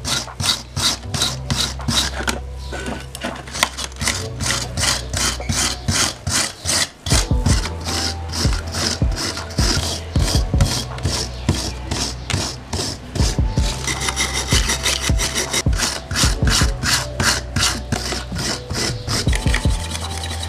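Brass wire brush scrubbed hard back and forth over a small die-cast metal toy train body, stripping old paint and corrosion: a fast, even run of rasping strokes, about three to four a second.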